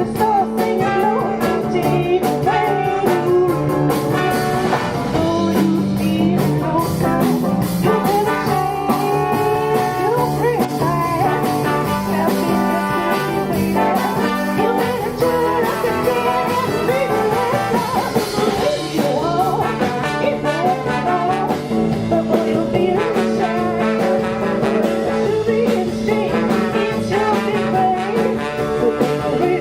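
Live jazz band playing, with a singing voice and guitar.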